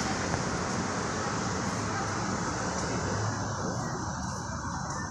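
City street traffic: cars driving past with a steady hum of road noise, the hiss easing off near the end.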